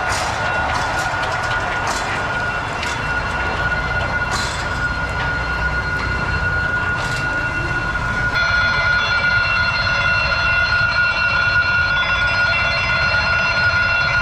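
A train passing over a level crossing, its wheels clacking, while the crossing's warning signal sounds a steady high tone. About eight seconds in, a louder sustained sound of many steady tones starts suddenly and holds to the end.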